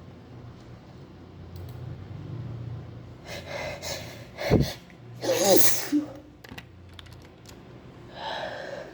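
A woman sneezing: gasping in-breaths build up, then a sharp burst and a loud voiced sneeze about halfway through, followed by another breath near the end.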